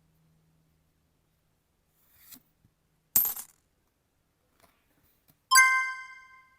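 A short swish about three seconds in, then a sharp, bright chime that rings with several clear tones and fades over about a second near the end.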